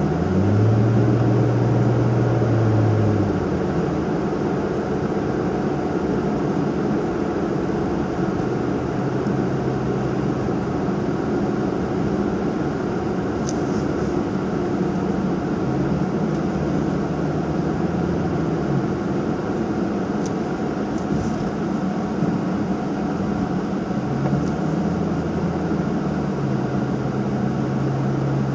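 Nissan Fuga 350GT's 3.5-litre V6 and its aftermarket quad-outlet exhaust, with tyre and road noise, heard from inside the cabin while driving. The low engine hum shifts in pitch a few times as the car changes speed.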